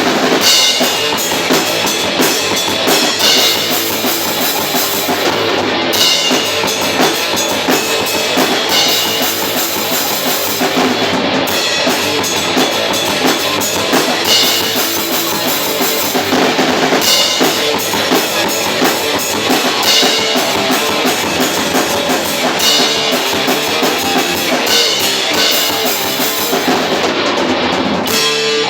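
Experimental metal band playing loud in rehearsal: drum kit with bass drum driving under guitar.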